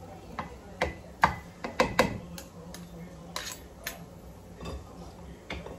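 Fork and spatula clicking and knocking against a frying pan and each other while rice noodles are tossed. The taps come irregularly, in a quick cluster in the first half.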